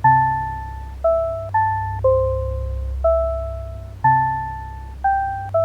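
Gentle background music: a slow melody of single struck notes, each starting sharply and dying away, about one a second with a few quicker pairs, over a steady low bass.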